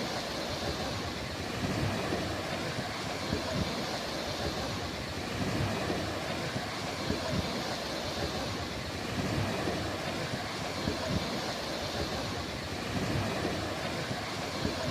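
Ocean surf washing on a beach, a steady rushing that swells and eases gently, with a gusty low rumble of wind on the microphone.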